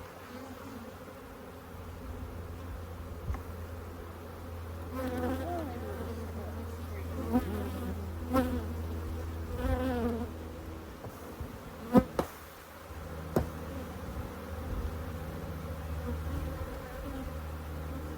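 Honeybees buzzing around a hive: a steady hum, with several bees flying close by in wavering pitch for a few seconds in the middle. A few sharp taps break in, the loudest about twelve seconds in.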